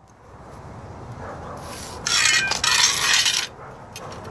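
A metal layout square and marker scraping on a rough concrete wall cap block while an arc is marked on it, loudest for about a second and a half in the middle.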